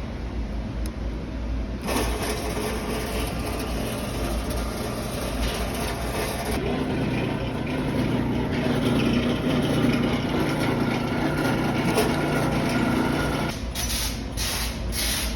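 Cummins diesel engine of the truck running steadily, with a deep rumble; the sound thickens about two seconds in and drops back near the end.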